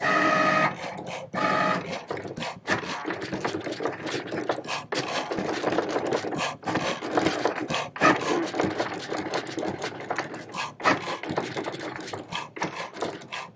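Cricut Maker 3 cutting machine at work on a sheet of Smart Vinyl: its motors whir in quick, irregular runs with short pauses as the blade carriage darts back and forth cutting the design. There is a steady pitched whine in the first two seconds.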